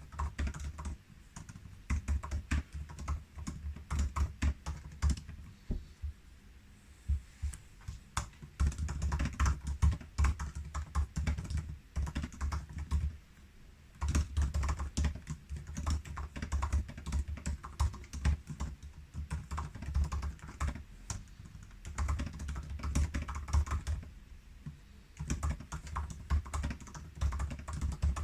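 Typing on the butterfly-switch keyboard of a 2019 13-inch MacBook Pro: rapid runs of keystroke clicks with short pauses between bursts.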